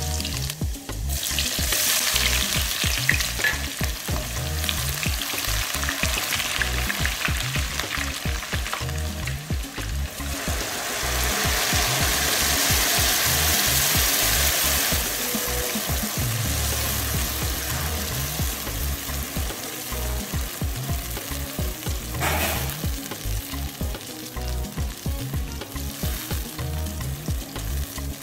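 Food frying in hot oil in a nonstick pan with a steady sizzle. Partway through, the sizzle swells into a louder hiss as a wet blended red pepper mix is poured into the hot oil, and it is then stirred with a spatula.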